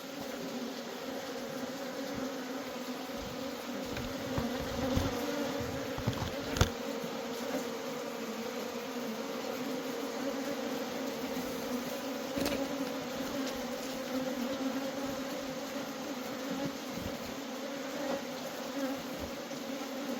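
A colony of honeybees buzzing in a steady, many-winged hum, with a few short knocks, the sharpest about six and a half seconds in.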